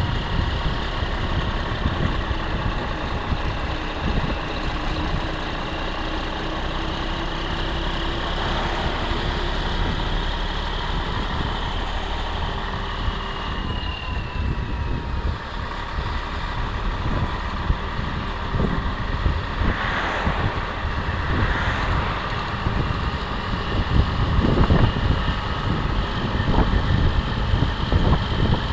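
Wind rushing over the microphone on the move, mixed with the steady running of a semi-truck tractor's diesel engine just ahead.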